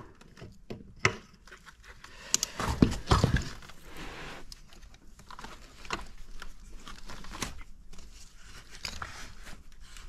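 Scattered clicks, knocks and scraping as threaded pipe fittings on the loop lines are worked by hand into a new geothermal flow center, with the sharpest knocks about one and three seconds in.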